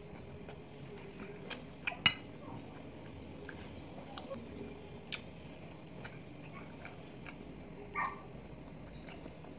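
Quiet eating sounds: chewing, with a few sharp clicks of a fork on a plate, the loudest about two seconds in. A short dog yip near the end.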